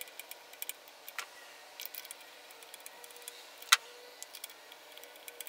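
Light, irregular metal clicks and ticks of a socket extension and ratchet being handled and turned as a new spark plug is run in by hand, with one sharper click about three and a half seconds in, over a faint steady hum.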